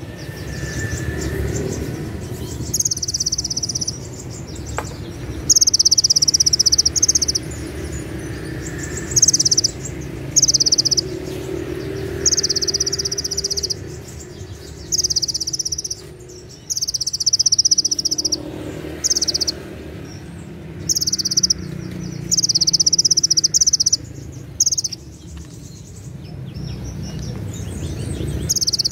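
Kolibri ninja sunbird singing: about a dozen loud, shrill, rapid trilled phrases, each about a second long, with short pauses between them. This is the sharp 'tembakan cililin' song that bird-song contests prize.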